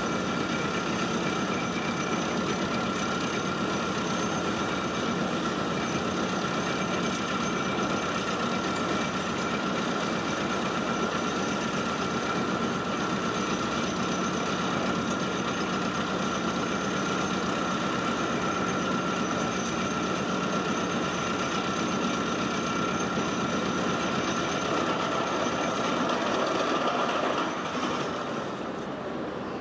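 Vibratory pile hammer driving steel sheet piles: a steady, dense vibrating drone with a constant whine, which stops near the end when the hammer shuts down.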